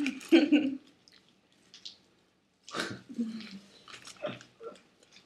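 Two short muffled vocal sounds from a person eating, the second falling in pitch, with a quiet gap between them and small mouth clicks and chewing noises after.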